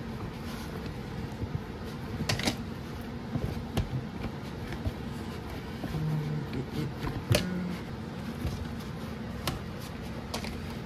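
Hands kneading dumpling dough in a plastic tub, with scattered light knocks against the tub over a steady room hum.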